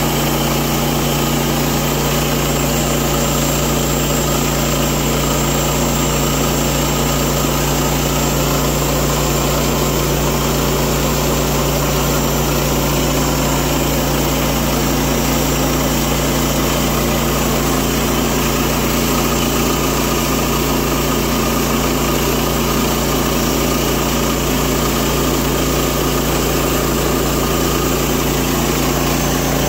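Woodland Mills HM122 bandsaw mill's engine running steadily at a constant pitch with the band blade spinning as the sawhead travels along the log.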